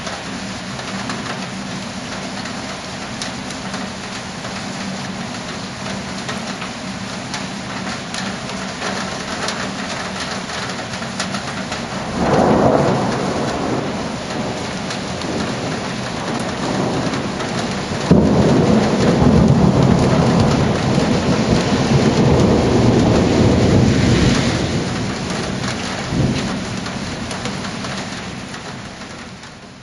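Thunderstorm: steady heavy rain with thunder. There is a sharp clap about twelve seconds in, a long low rolling rumble from about eighteen seconds, and a last crack near the end of the rumble, before the sound fades out.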